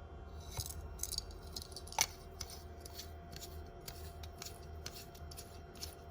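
Small plastic parts of a personal humidifier handled by hand: a run of light clicks and rubbing, with one sharper click about two seconds in.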